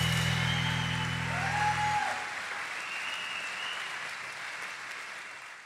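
Concert audience applauding. The band's last sustained low note cuts off about two seconds in, and the applause then fades out.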